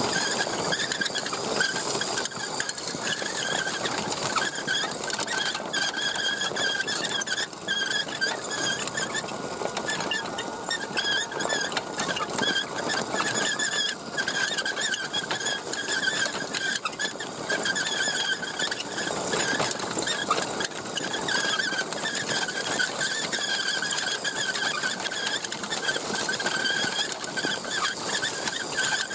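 1/10-scale Axial SCX10 RC truck driving over dirt: its electric motor and gears give a high whine that wavers with the throttle, over a constant rattle of the chassis and gravel.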